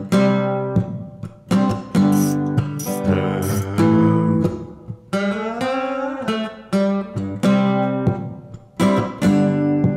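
Intro music: acoustic guitar strumming chords.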